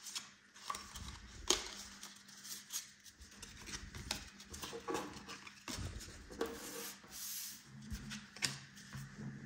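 Sports trading cards being handled and laid down on a wooden tabletop: faint, irregular taps, slides and rustles.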